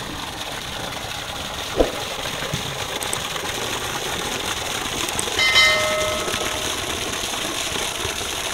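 Spring water falling in a thin stream and splashing steadily into a shallow pool. A short knock comes near two seconds in, and a single bell-like chime rings out about five and a half seconds in.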